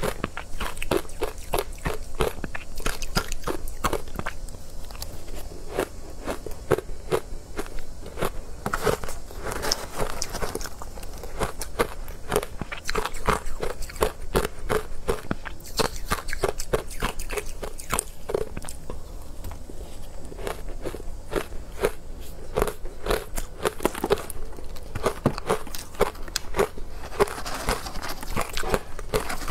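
Close-miked crunching and chewing of soft, powdery ice dusted with matcha powder, a dense run of crisp crunches several times a second.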